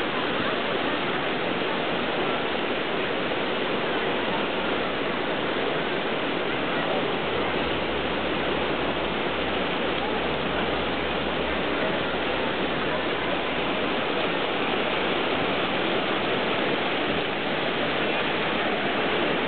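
Steady rush of whitewater rapids, river water running fast over rocks.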